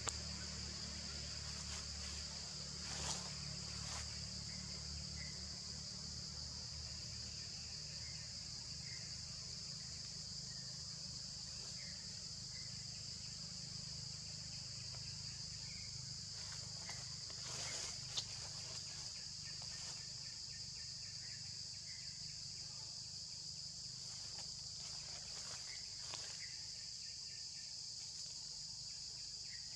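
Steady high-pitched drone of insects in the forest canopy, with faint short chirps every second or two. A couple of brief clicks stand out, a few seconds in and about halfway through.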